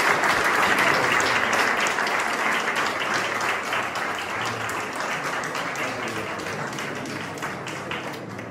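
Audience applauding, loud at first and slowly dying down.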